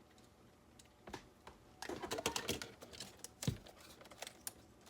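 Small plastic parts being handled: scattered clicks and rustles, with one dull thud about three and a half seconds in.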